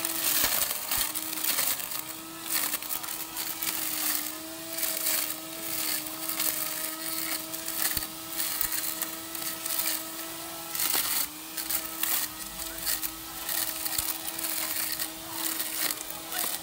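Small handheld electric grass trimmer running with a steady motor whine, its spinning head cutting grass and leaves at the base of a hedge with rapid crackling and snapping. The whine briefly sags near the start and again about two thirds of the way through as the head bites into growth.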